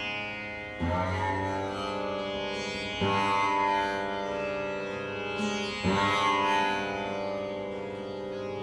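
Rudra veena played slowly: three plucked notes about three seconds apart, each ringing on with many overtones until the next.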